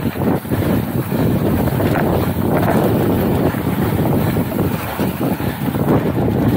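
Wind buffeting the microphone while a mountain bike rolls down a sandy dirt trail, its tyres rumbling and crunching over the ground. The noise is loud and steady, with constant rapid fluttering.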